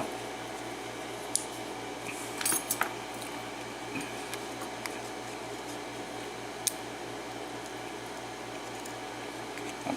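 A few small metallic clicks and clinks as top pins and springs are worked out of a Schlage KIK lock cylinder, a quick cluster of them about two and a half seconds in, over a steady low hum.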